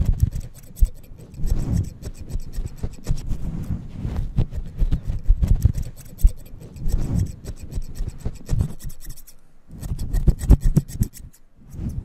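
Haircutting scissors snipping and rubbing through the fluffy fur cover of a microphone, right against it: a dense run of crisp snips and rasping, rustling scrapes, broken by two short pauses near the end.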